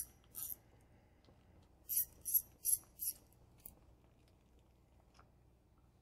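Small wrench working the screws that hold the speed sensor to an electric car's DC drive motor: short, quiet metallic clicking strokes, a pair near the start and four more in quick succession about two seconds in.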